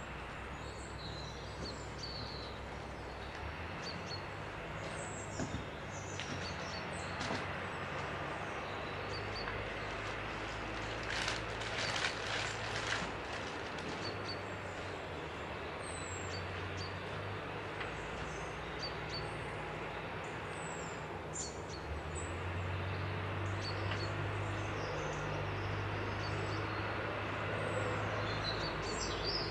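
Songbirds chirping and whistling every few seconds over a steady low hum and a broad background hiss, with a short, harsher burst of sound about eleven seconds in.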